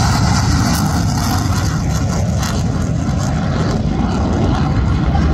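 Sukhoi Su-30MKM fighter's twin AL-31FP turbofan jet engines at high power as the jet climbs away: loud, steady jet noise, heaviest in the deep low end.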